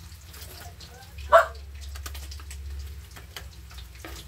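Kitchen scissors snipping and crunching through the crisp skin and bones of a whole fried fish on a plastic cutting board, as irregular small clicks and crackles. One loud, short sound stands out about a second and a half in.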